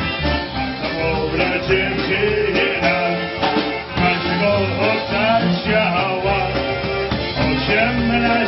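Live polka band playing a polka.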